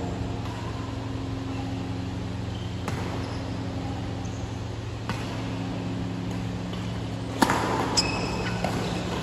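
Badminton shuttlecock struck twice by rackets near the end, two sharp hits about half a second apart, over a steady low hum in a large hall. A few faint taps come earlier.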